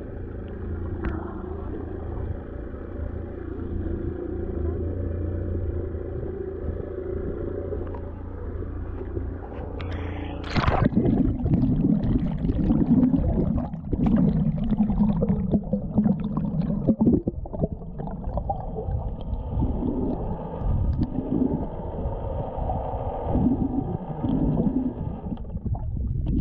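Sea water against a GoPro in its waterproof housing: a steady muffled rumble and slosh at the surface, then about ten seconds in a splash as the camera goes under, followed by choppy underwater gurgling and crackling from the swimmer's movements.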